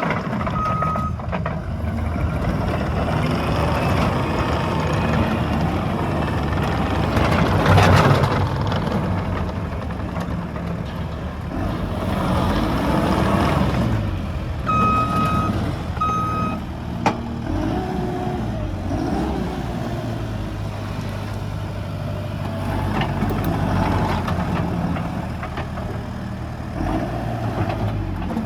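Case TV370 tracked compact loader working, its diesel engine rising and falling in speed as it moves and works. Its reverse alarm beeps in short runs near the start, about halfway through and at the end, and there is one sharp clank a little after halfway.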